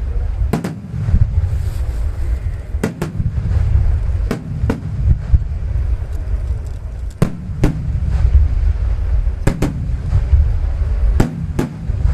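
Aerial fireworks shells bursting, about ten sharp bangs, many of them in quick pairs, coming every second or two over a continuous low rumble of booming.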